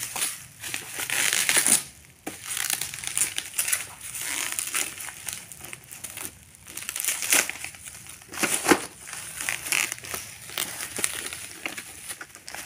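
Plastic bubble wrap crinkling and crackling irregularly as small hands pull and crush it off a boxed toy.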